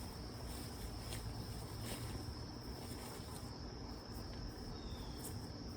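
Crickets trilling steadily in a high, thin, unbroken tone, over a low background rumble with a few faint ticks.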